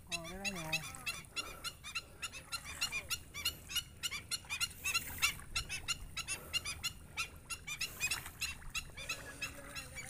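Black-winged stilts calling: short, sharp notes repeated several times a second in a fast, steady run.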